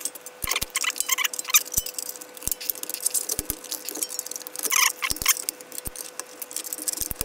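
Sheet-metal parts of a Tefal bread toaster clicking, scraping and rattling as they are pried and handled with a screwdriver during disassembly, with irregular sharp metallic taps.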